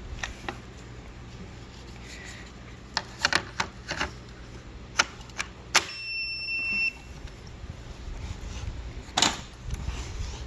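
Sharp plastic clicks and knocks as a DeWalt 20V battery is handled and fitted into the converted Stacyc battery slot. Just after the middle comes a single steady high electronic beep about a second long, and near the end a thump.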